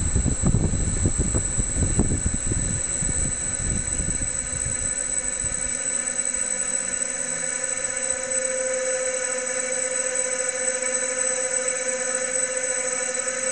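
Drying-chamber fan running steadily with an even whine. Its airflow buffets the microphone for the first few seconds, fading out about five seconds in.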